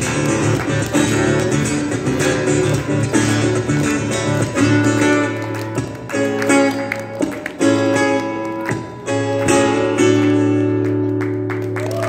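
Solo acoustic guitar: busy, percussive strumming and plucked chords, then a few struck chords left to ring. About ten seconds in, a last chord rings out and fades, ending the piece.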